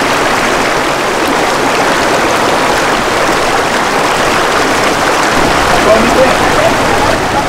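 Mountain river rushing over rocks and a small weir, a steady loud noise of running water. Faint voices of people join a little past halfway.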